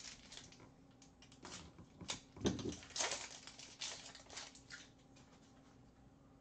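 Hands handling trading cards and tearing open a foil card pack: short rustles, crinkles and light taps, busiest about halfway through, then dying away near the end.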